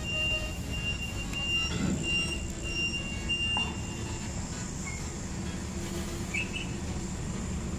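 Street traffic noise: a steady low rumble of vehicles, with a thin high squeal that comes and goes in the first few seconds.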